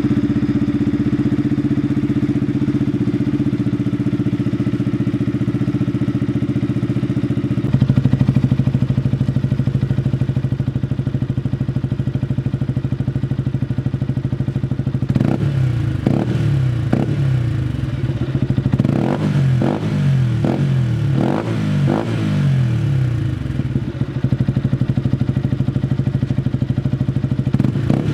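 Yamaha MT-125's single-cylinder four-stroke engine through an Akrapovic exhaust, idling steadily. About a third of the way in the idle steps up slightly. Over the second half the throttle is blipped in a run of quick revs, each rising and falling back to idle.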